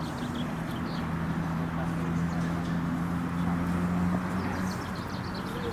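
Outdoor sports-field background of distant, indistinct crowd voices, with a steady low hum that stops near the end.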